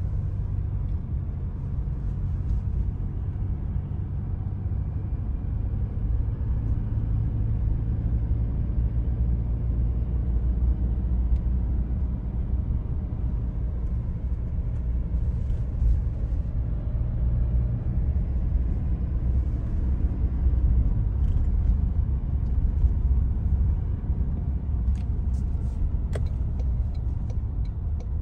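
A motor vehicle's steady low rumble of engine and road noise, with a few faint clicks near the end.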